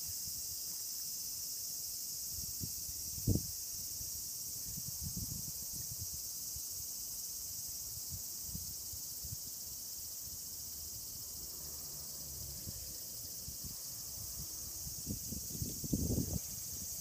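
A steady high-pitched insect chorus, with a sharp low thump about three seconds in and a cluster of low knocks and rumbles near the end.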